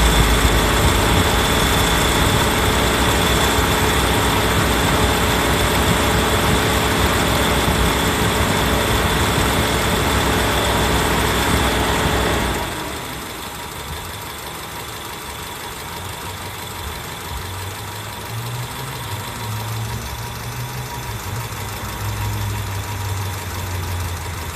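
Car's electric radiator cooling fans running with a steady whirring rush and a thin high whine. About halfway through they switch off and wind down within about a second, leaving a quieter low engine idle hum. The owner suspects a fault in the fan, whose second fan stops sooner than the main one behind it, which he is unsure is abnormal.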